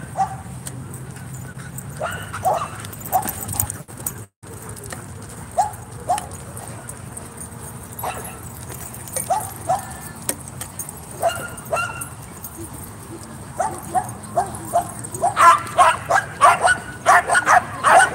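Dogs barking and yipping in short, sharp calls while playing. The calls come singly at first and crowd into a quick run of barks over the last few seconds.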